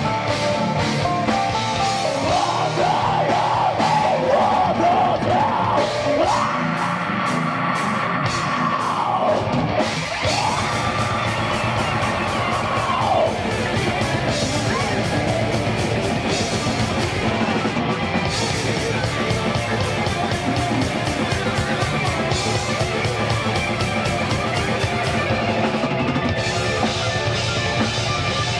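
Heavy metal band playing live and loud, with pounding drum kit and distorted guitars. For the first half a high melody line wavers and bends in pitch over the band, then gives way to a dense, even wall of drums and guitars.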